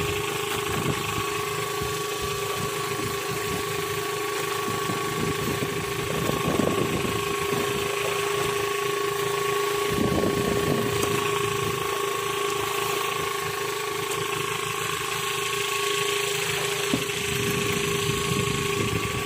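A small engine aboard an outrigger fishing boat running steadily, a constant hum over an even rushing noise.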